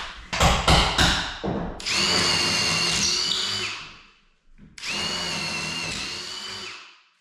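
Handheld electric power tool run in two bursts of about two seconds each, its motor whine holding steady, after a few sharp knocks at the start.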